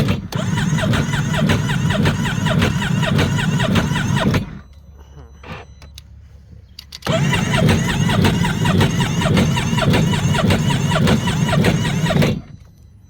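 Sea-Doo Spark's Rotax 900 ACE three-cylinder engine being cranked by its electric starter in two long attempts, about four and five seconds each, with a short pause between. The engine turns over steadily but never catches: a crank, no-start condition that persists after new injectors and spark plugs.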